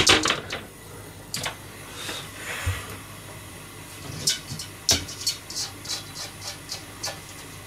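A hammered yukihira saucepan clanks down onto the gas hob's grate, followed by a few scattered knocks. Then comes a run of light ticks, about three a second, over a faint hiss as the pot simmers on the burner.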